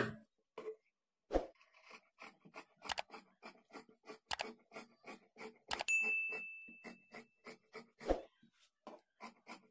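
Tailor's scissors snipping through folded blouse fabric, about three short snips a second, with a few louder clacks from the blades. About six seconds in, a single bell-like ding rings for about a second and a half.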